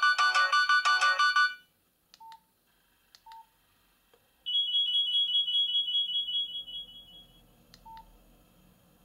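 Nokia 7230 mobile phone playing a ringtone melody through its small speaker, which stops about a second and a half in. Then come a few short beeps as the phone's keys are pressed, and a high steady tone that starts about halfway through and fades away.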